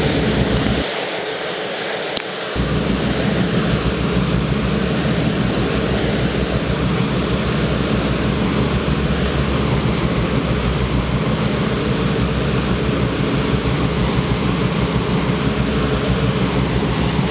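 Motorboats running at speed over open water: a steady low engine rumble under rushing wind and wake spray on the microphone. The low rumble drops out briefly about a second in, with a single click.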